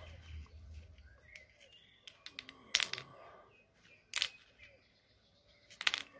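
Short metal tubes clinking against each other and onto a stone slab as they are handled and set down: three sharp metallic clicks, each with a brief ring.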